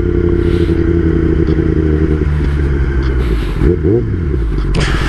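Kawasaki ZX-10R inline-four engine running on the road, heard with wind rush over the helmet microphone. Its note changes about two seconds in, with a short rise and fall in pitch near four seconds.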